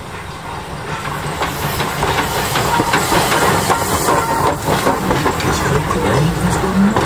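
A steam locomotive dressed as Thomas the Tank Engine passes close by, hissing steam, and its open passenger cars follow. The wheels clack over the rail joints, and the sound grows louder about a second in as the train draws alongside.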